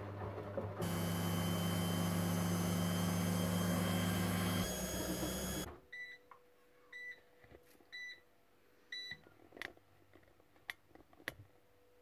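Front-loading washing machine running with a steady hum and rushing noise that stops suddenly about halfway through, then four short electronic beeps from the machine about a second apart, followed by a few sharp clicks.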